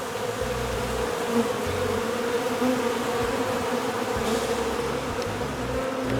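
Many honeybees buzzing in a steady, even hum as they gather on a bait box.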